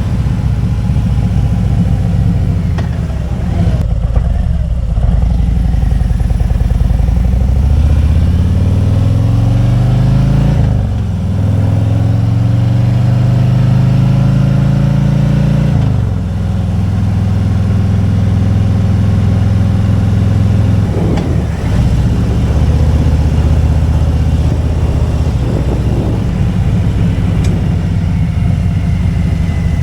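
Motorcycle engine under way, rising in pitch as it accelerates and dropping sharply at gear changes, twice in the middle, then running steadily at a lower pitch.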